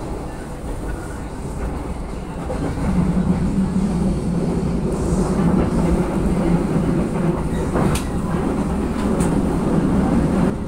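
Passenger train carriage running along the rails, a steady rumble heard from inside the car, with two sharp clicks about a second apart near the end.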